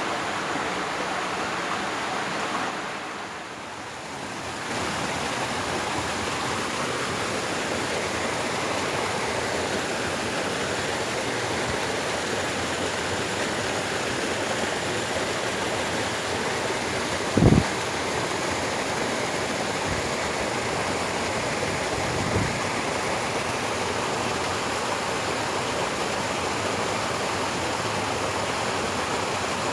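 Water rushing steadily along an irrigation ditch, dipping briefly a few seconds in. A short thump about two-thirds of the way through is the loudest sound, with a softer one a few seconds later.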